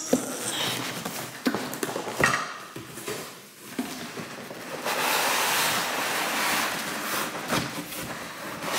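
Unboxing a crock pot: cardboard box flaps and molded pulp packing handled with a few knocks and scrapes, then a longer stretch of packaging rustling about halfway through as the plastic-wrapped pot is worked out of the box.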